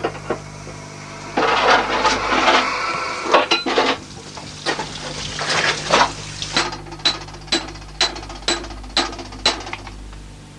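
Metal bar scraping and rattling against rock, then a run of about seven sharp, ringing metallic clinks, roughly two a second.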